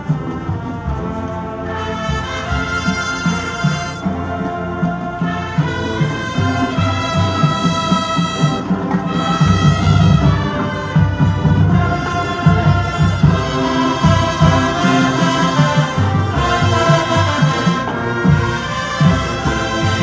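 High school marching band playing its competition show: brass holding full chords over drums, growing louder over the first half.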